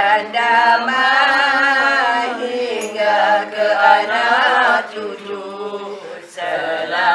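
Mixed group of men and women chanting in unison, in long, wavering sung lines. Their voices dip briefly near the end before the next line begins.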